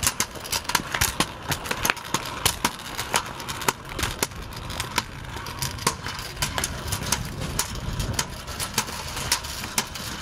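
Kick scooter rolling along a concrete sidewalk: a steady rumble of small hard wheels on the pavement, with many sharp, irregular clicks and rattles.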